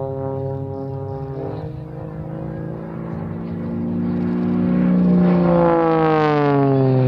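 Extra EA-330SC aerobatic plane's six-cylinder Lycoming engine and three-blade propeller droning in flight. The pitch dips about a second and a half in. It then grows louder and higher from about four seconds in, and slides down in pitch near the end.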